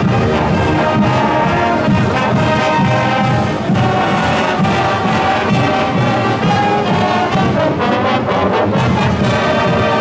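College marching band playing a tune on the march: massed trumpets, trombones and sousaphones over a steady beat.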